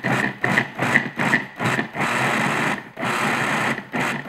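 Food processor pulsing, its blade cutting cold butter into flour for pie pastry: a string of quick short pulses, then two longer runs of about a second each.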